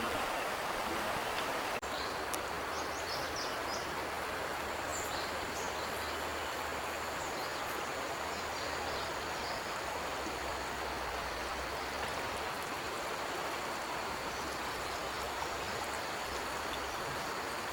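Steady rush of flowing water, like a forest stream, with a few faint bird chirps in the first few seconds.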